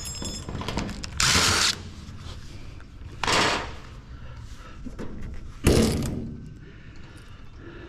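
Metal parts of an old computer rack being handled: three short, harsh scraping or clattering noises about two seconds apart, the last starting with a bang.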